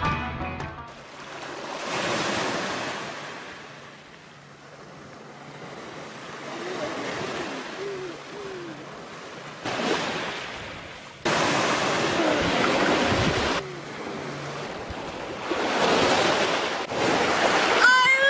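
Ocean surf washing on a beach, with wind on the microphone, rising and falling in several surges.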